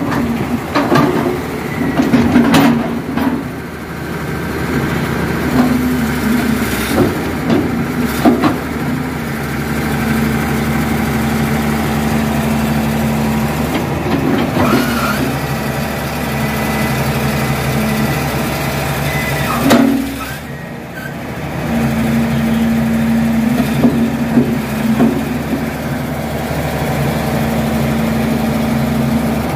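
Caterpillar hydraulic excavator's diesel engine running steadily while the machine is swung and worked, with scattered clanks and knocks. About two-thirds of the way through, the engine sound briefly drops, then picks back up.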